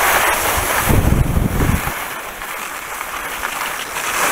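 Wind rushing over the camera microphone while skiing downhill, with a heavier low buffeting gust about a second in.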